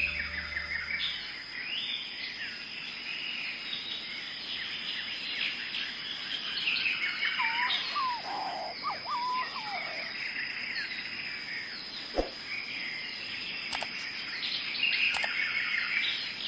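Forest bird chorus: many small birds chirping and twittering over one another, with a few lower whistled notes about halfway through. A steady high-pitched tone runs underneath.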